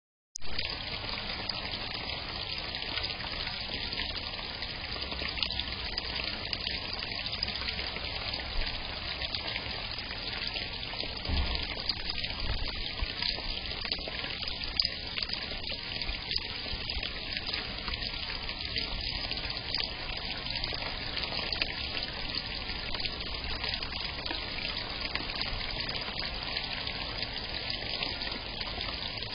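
Steady trickling of water in a small garden pond, with a few brief louder sounds now and then.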